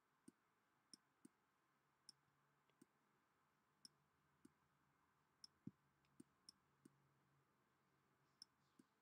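Faint, irregular clicks of a stylus pen tapping on a tablet screen while handwriting a word, about a dozen over near silence.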